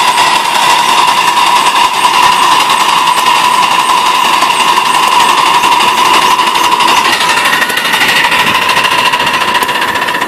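Miniature live-steam 2-4-0 locomotive running with a loaded train: a loud, rapid, even clatter of its wheels and running gear on the rails, with a steady high ringing tone above it.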